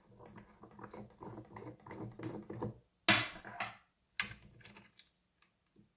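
The O2 sensor of a Cosmed Fitmate Pro being turned counterclockwise with its removal tool to unscrew it: a run of small clicks and scrapes, then a louder scraping rasp a little after three seconds in and a shorter one just after four.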